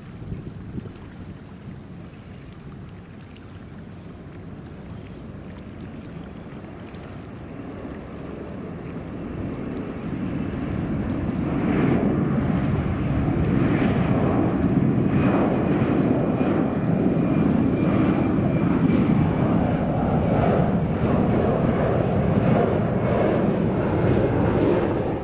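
Boeing 747-400's four jet engines at takeoff thrust: a deep rumble that builds over the first twelve seconds or so, then holds loud with a ragged crackle as the jet climbs out, and cuts off at the end.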